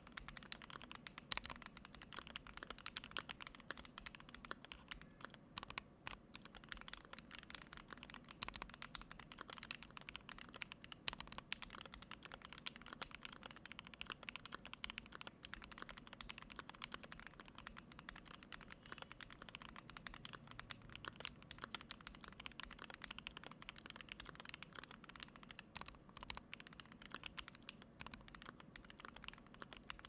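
Continuous typing on a KBDfans D65 mechanical keyboard with a brass plate, Krytox-lubed Banana Split linear switches, GMK Red Samurai keycaps and foam in the case: a steady, dense stream of keystrokes with a few louder strokes scattered through.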